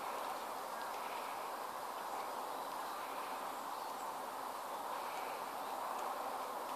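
Steady outdoor woodland ambience: an even, hissy hum with faint chirps that come and go, typical of insects in autumn woods.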